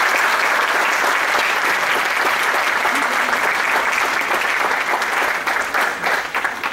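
Audience applauding, dense and steady clapping that thins out slightly near the end.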